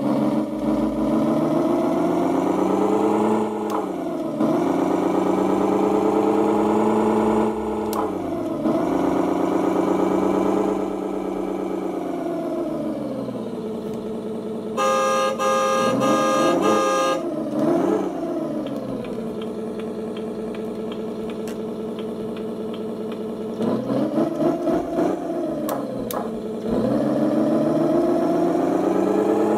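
Simulated Land Rover V8 engine sound from an ESP32 RC engine sound controller, played through small speakers. It is revved up and back down again and again with the transmitter throttle, then drops to idle. About halfway through, a horn sounds from the speakers for about two seconds among a few quick throttle blips, and a few rev-ups follow near the end.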